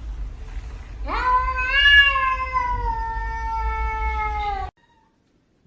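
A domestic cat giving one long drawn-out yowl that rises quickly and then slowly falls, over a low hum, cut off abruptly near the end.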